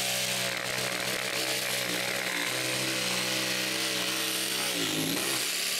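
Power saw running and cutting into wood rafters, with a steady motor tone over the cutting hiss; the pitch sags briefly near the end as the blade loads up.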